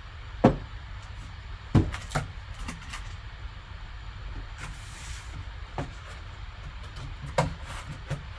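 A cardboard box being opened and handled: several sharp knocks and taps of cardboard, the loudest about half a second and nearly two seconds in, with a brief sliding scrape about halfway through, over a steady low hum.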